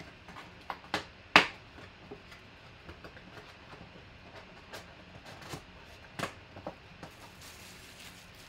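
Cardboard trading-card hobby box being opened and its lid folded back into a display stand: a series of short knocks and scrapes of cardboard, the sharpest a little over a second in.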